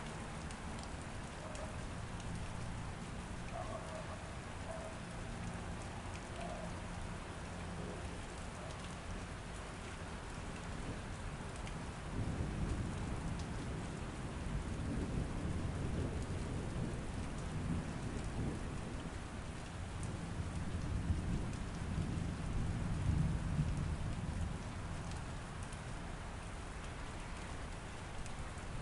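Steady rain falling, with a long low roll of thunder that builds about twelve seconds in, is loudest a little past twenty seconds, then dies away.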